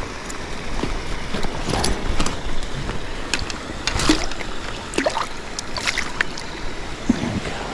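Water splashing and sloshing, with many quick splashes over the steady rush of a flowing trout stream.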